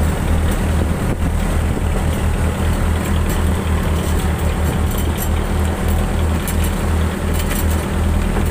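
Fishing boat's engine running steadily, a loud low drone that pulses slightly.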